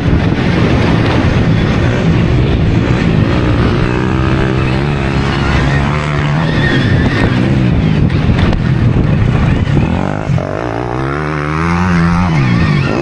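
Motocross riding on a dirt track on a Stark Varg electric dirt bike: a steady rush of wind and track noise, with a motor's pitch rising and falling as the throttle opens and closes, most plainly near the end.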